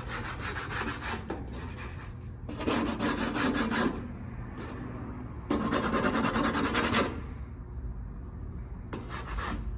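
Four rasping scrape strokes across a painted steel car quarter panel, each lasting about a second or more with pauses between. The panel is coated with paint remover that has not softened the factory e-coat.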